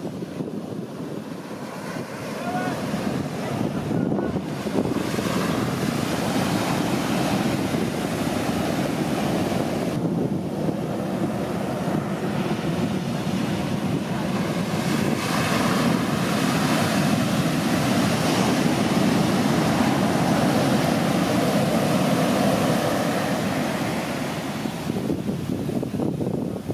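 Heavy shorebreak waves crashing and whitewater rushing up the sand, with wind buffeting the microphone. The surf grows louder over the first few seconds and eases near the end.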